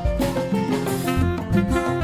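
Upbeat instrumental background music with plucked guitar over a steady drum beat.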